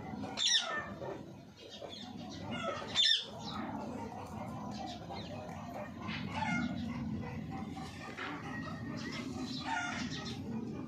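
Short animal calls, two sharp high ones about half a second and three seconds in, with more calls later over a steady low background.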